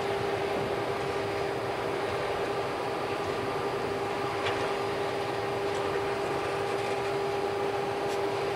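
Double-stack intermodal container cars of a Union Pacific freight train rolling past, a steady rumble of wheels on rail with a steady hum held throughout. A few light clicks come in the second half.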